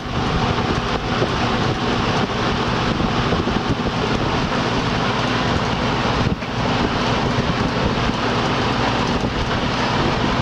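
Old Coronado 20-inch box fan running on its single speed, its motor wired direct: a loud steady rush of air blowing across the microphone, with a low motor hum underneath. The sound dips briefly about six seconds in.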